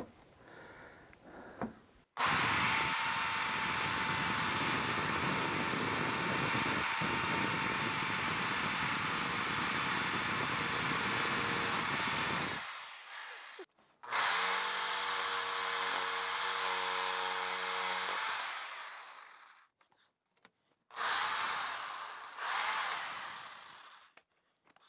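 Cordless jigsaw cutting a rectangular opening through a wooden baseboard side. It runs steadily for about ten seconds, stops, then cuts again for about four seconds, and there are two short bursts near the end.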